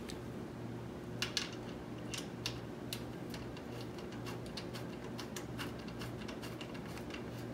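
Small metallic clicks and taps of a brake-line bolt and crush washers being handled and threaded by hand into a rear brake master cylinder, a few louder clicks clustered about a second in. A steady low hum runs underneath.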